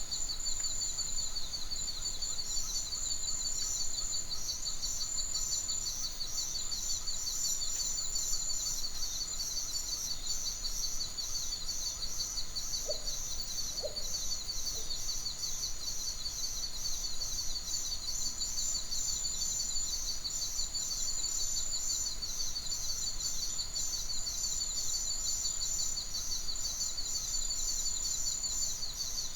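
Nature ambience: a steady chorus of high-pitched, rapidly pulsing calls, with a couple of short low calls about halfway through.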